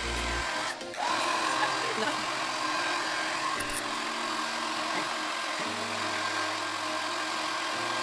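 Koizumi Beauty hair dryer blowing with a steady rush of air and a faint whine, after a brief dip about a second in.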